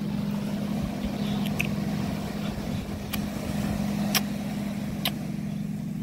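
A steady low hum, with three short sharp clicks about a second apart in the second half.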